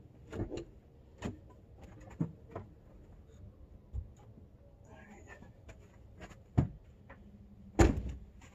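Scattered light clicks and knocks as a chainsaw battery is fetched out of a pickup truck, with two louder knocks near the end.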